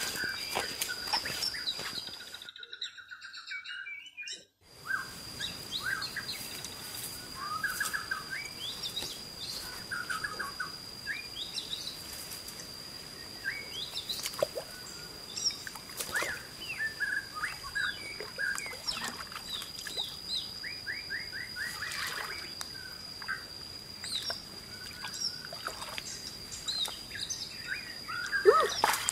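Birds chirping and calling in many short chirps and quick trills over a steady high-pitched whine. The sound drops out for about two seconds near the start, and a louder, brief sound comes right at the end.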